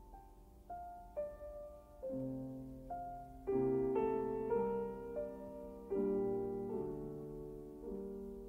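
Slow piano music: single notes at first, then fuller chords that ring on and fade.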